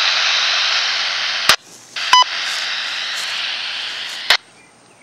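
Wouxun KG-UV2D handheld FM radio on the 2-metre repeater giving out a steady static hiss with no voice, between transmissions of the net. The hiss cuts off with a squelch click about a second and a half in, comes back half a second later with a click and a short beep, and cuts off again with a click near the end.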